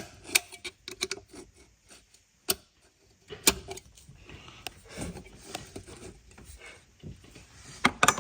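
Scattered irregular clicks and light knocks of hands working the retaining clip on a BMW N55's charge pipe, with a low rustle of handling between them. The sharpest clicks come at about two and a half and three and a half seconds in, and there is a quick cluster near the end.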